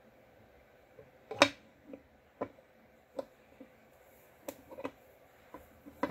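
Scattered light clicks and taps of a water pump and its small parts being handled and pressed into the engine case of a Beta four-stroke dirt bike, with the sharpest click about a second and a half in.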